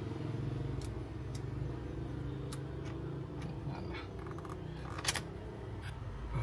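Light clicks and taps from handling the removed speedometer instrument cluster and its connectors, over a low steady hum; the loudest click comes about five seconds in.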